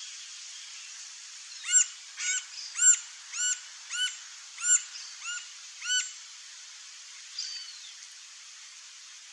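Green-barred woodpecker calling a run of about nine loud, evenly spaced notes at roughly two a second, starting near two seconds in and stopping about six seconds in. One fainter, down-slurred call follows, over a steady outdoor hiss.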